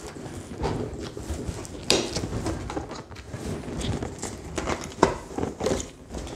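Inflated latex link balloons being handled and tied together: the latex rubs and knocks irregularly, with sharp clicks about two seconds and five seconds in.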